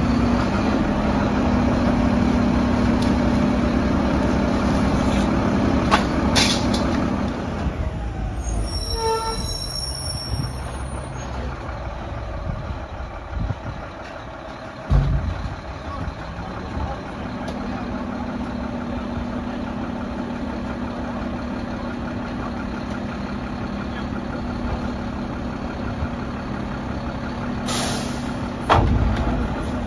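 Mack LR garbage truck's diesel engine running, its steady drone easing about eight seconds in and returning about seventeen seconds in. A single sharp knock comes about halfway through, and a loud air-brake hiss followed by a thud near the end.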